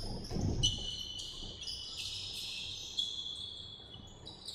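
Basketball sneakers squeaking on a hardwood gym floor: many short, sharp, high squeaks overlapping and stopping abruptly, with a few dull thumps in the first second.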